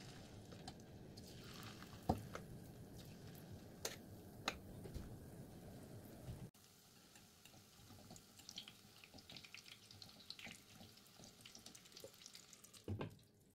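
Faint sizzling and crackling of fish-roe fritters frying in vegetable oil in a pan, with a few light clicks of a metal spoon against the bowl and pan; the sizzle drops quieter about halfway through.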